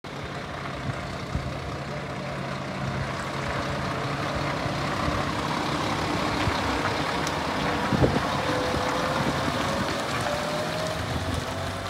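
Scania R480 truck's straight-six diesel engine running as the truck drives slowly past. Over the last few seconds a whine rises gradually in pitch, and there is a single brief knock about eight seconds in.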